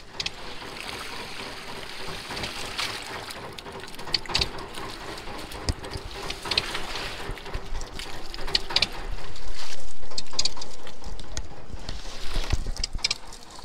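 Water splashing and dripping off a fishing net as it is hauled aboard a small fishing boat, with scattered splatters and knocks. A louder rushing swell comes about ten seconds in.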